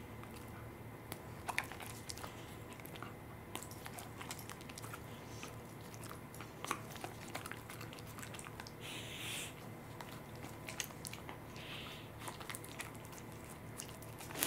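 Fluffy Welsh corgi licking and nibbling a dog treat held in a person's fingers: soft wet mouth clicks and smacks, coming irregularly.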